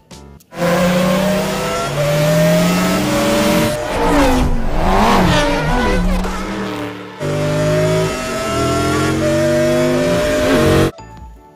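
Race car engines at high revs, several cars passing with their pitch sweeping down and up around the middle. The sound cuts in suddenly, breaks off briefly about seven seconds in, and stops near the end.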